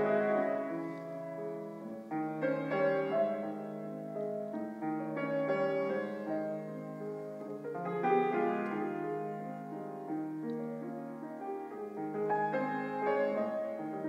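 Grand piano playing a slow nocturne: sustained, pedalled chords under a melody, in phrases that swell and fade, with new chords struck about every three seconds.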